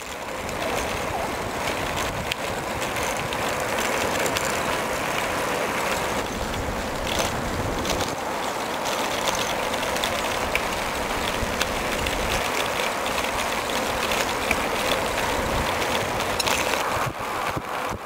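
Steady rush of wind over the microphone, mixed with bicycle tyres rolling on asphalt, while cycling along at speed. It wavers and dips briefly near the end.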